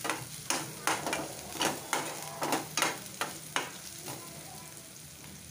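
Metal spoon scraping and knocking against a stainless steel wok while stirring garlic, onion, green chili and curry leaves, about two strokes a second, over a steady sizzle of the frying oil. The stirring stops about three and a half seconds in, leaving only the sizzle.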